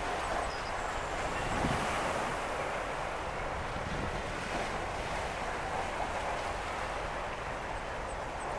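Sea surf washing in and breaking over shoreline rocks: a steady rush of water that swells slightly louder about two seconds in.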